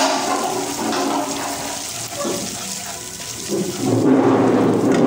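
Garlic and ginger paste sizzling in hot oil in a wok while a wooden spoon stirs it, the sizzle growing louder about four seconds in.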